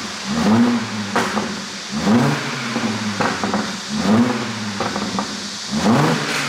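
Audi A7 3.0 TFSI supercharged V6 revved in quick blips, about four in a row, with exhaust pops and crackles on the overrun after each one from a pop-and-crackle ECU tune.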